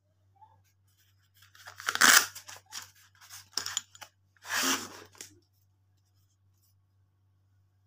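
Two tearing rips, about two seconds in and again near five seconds, as the black plastic sheath of a dual-blade tomahawk is pulled open and the axe head drawn out, with short clicks and rustles of plastic between them.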